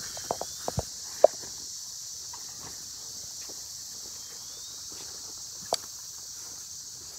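Footsteps and dogs' paws scuffling on grass, with a run of sharp clicks in the first second and a half and one more near six seconds in, over a steady high drone of insects.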